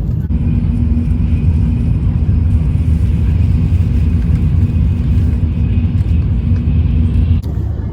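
Shinkansen bullet train running: a steady, loud rumble with a low hum and a faint high whine, breaking off sharply near the end.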